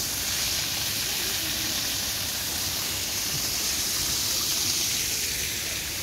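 A steady, even high hiss with no change throughout.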